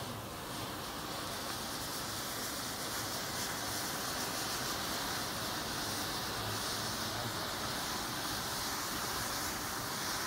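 Matchsticks burning in a chain, a steady hiss that swells over the first second and then holds.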